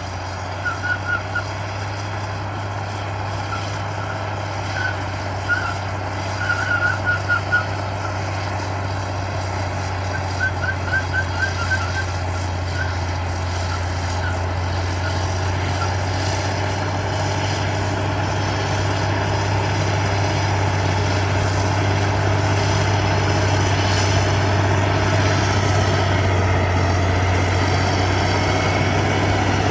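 Heavy diesel earthmoving machinery running steadily with a deep, even hum that grows louder over the last part. In roughly the first half there are quick runs of short high-pitched beeps.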